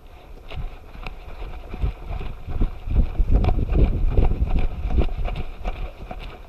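Harness-mounted action camera jostled by a running dog: a quick, irregular patter of thuds and knocks from her footfalls and the bouncing harness, with wind buffeting the microphone. It starts about half a second in, is loudest in the middle and eases near the end.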